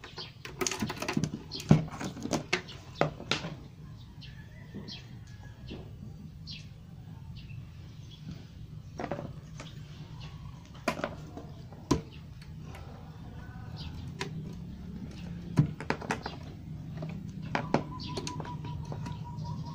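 Clicks and knocks of car-audio wiring and connectors being handled while they are hooked up to an amplifier, busiest in the first few seconds, over a low steady hum.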